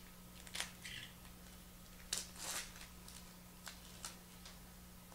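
Faint crinkling and rustling of a foil trading-card pack and the cards being slid out of it, in short scattered bursts, the loudest a little over two seconds in.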